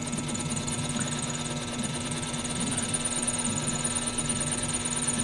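A small hobby lathe running, its spindle turning a stainless steel workpiece for taper turning: a steady motor hum with a faint high whine, growing slightly louder.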